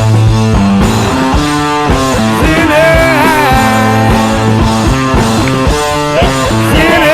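Rock music with distorted guitar and a steady drum beat.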